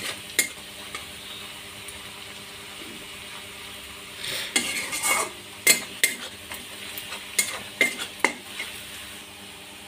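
Sliced onions sizzling in hot oil in a wok while a metal spatula stirs them, scraping and clinking against the pan. The sizzle runs steadily, with one spatula stroke just after the start and a run of strokes from about four seconds to eight and a half.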